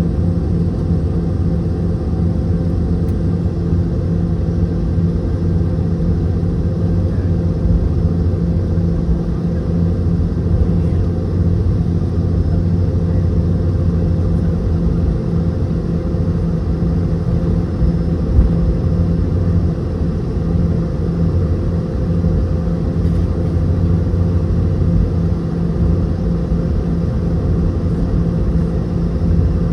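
Cabin noise inside a Boeing 717-200 on the ground, its rear-mounted Rolls-Royce BR715 engines running steadily as a loud, even low hum with a few steady tones. One brief thump about eighteen seconds in.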